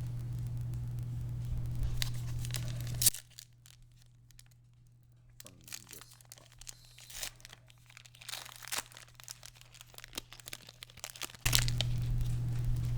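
A foil Pokémon booster pack wrapper torn open with a sharp snap about three seconds in, followed by scattered crinkling and rustling as the pack and cards are handled. A steady low electrical hum drops out at the snap and returns near the end.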